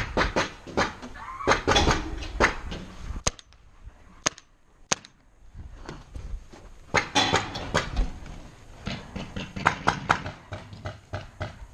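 Paintball player moving on foot between plywood bunkers: irregular footsteps, knocks and gear rattle. In a quieter stretch about three to five seconds in there are a few separate sharp cracks.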